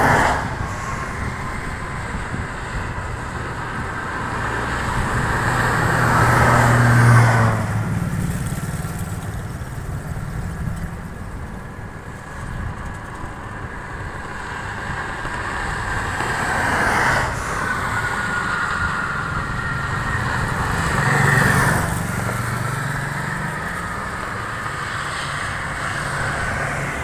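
Road traffic passing on a multi-lane highway below. Several vehicles go by one after another, each rising and fading away with engine hum and tyre whine. The loudest pass is about seven seconds in, and another comes near the end.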